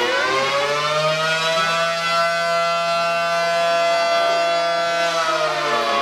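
Air-raid siren wailing, the alert for approaching enemy aircraft: its pitch rises in the first second, holds steady, then falls near the end.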